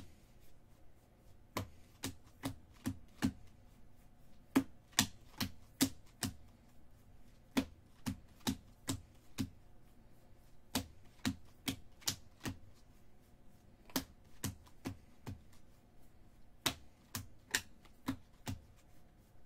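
2019 Bowman baseball cards being flipped one by one off a hand-held stack, each card giving a sharp click. The clicks come in quick runs, about two or three a second, with short pauses between runs.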